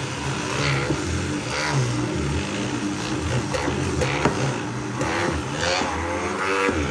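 Braun MultiQuick 9 hand blender's 1200 W motor running under heavy load in a dense mixture, its pitch wavering up and down as the blade slows and picks up again without stalling.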